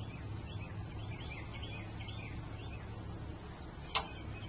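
Small birds chirping in short repeated calls over a steady low hum, with one sharp click about four seconds in.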